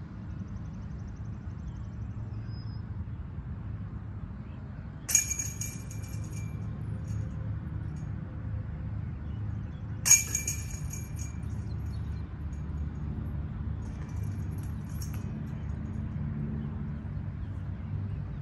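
Two sharp metallic clanks of a disc golf basket's chains and metal frame, about five seconds apart, each ringing briefly, over a steady low rumble.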